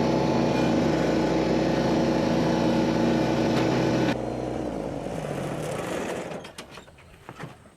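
Engine running steadily, then shut off about four seconds in and winding down to a stop over the next couple of seconds. A few faint knocks follow near the end.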